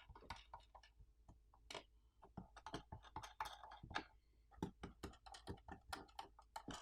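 Faint, irregular small clicks and ticks of the screw-on feet on a mini PC's bottom cover being unscrewed by hand.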